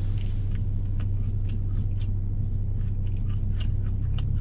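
Steady low hum of a car idling, heard from inside the cabin, with small scattered clicks of biting and chewing food close to the microphone.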